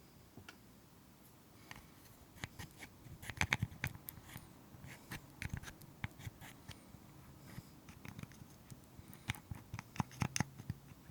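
Slime being squeezed and stretched by hand, giving irregular sticky clicks and pops. The clicks come thickest about three seconds in and again near the end.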